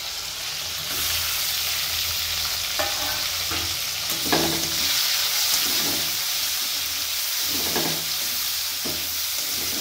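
Freshly added sliced onions sizzling in hot oil in a kadai, with a spatula stirring and scraping against the pan in short strokes about once or twice a second from about three seconds in. This is the start of frying the onions until brown.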